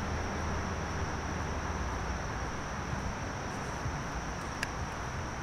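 Crickets chirping in a steady high trill, over a low rumbling noise.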